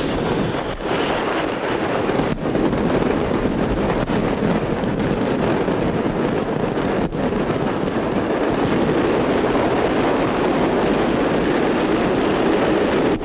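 Masses of fireworks set off by a fire in a fireworks storage depot, crackling and banging in a continuous dense barrage with no let-up.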